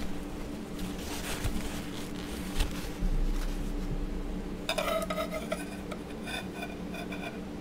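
Clay blade scraping softly as it shaves a polymer clay block. From about two-thirds in comes a quick run of light, ringing clinks of hard objects knocked together on the work surface.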